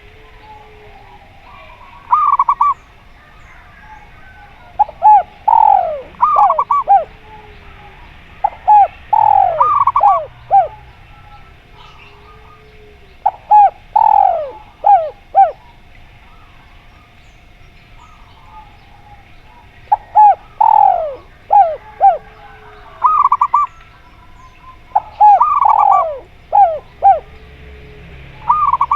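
Zebra dove (perkutut) and derkuku dove calling in turn: several phrases of quick falling cooing notes, broken up by short single coos.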